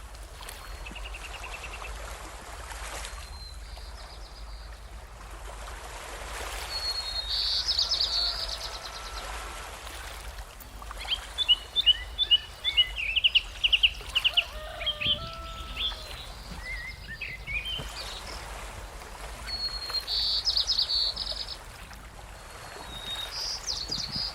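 Songbirds singing: short, high, buzzy trills about a second long repeat several times, with a burst of rapid chirping notes in the middle, over a steady background hiss.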